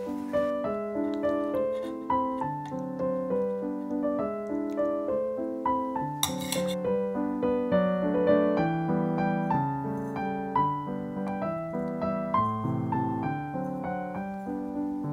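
Background solo piano music: a continuous run of struck notes, each fading away.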